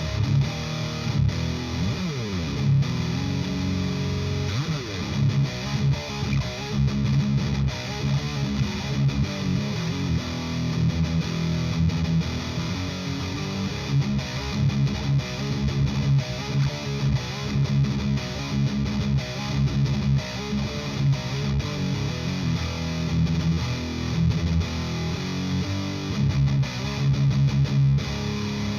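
Distorted electric guitar played through a Driftwood Mini Nightmare tube amp, driven by a Pepers Pedals Dirty Tree overdrive, into an isolation cabinet loaded with a Celestion G12H-75 Creamback and a Vintage 30. Continuous riffing, with two sliding notes in the first few seconds.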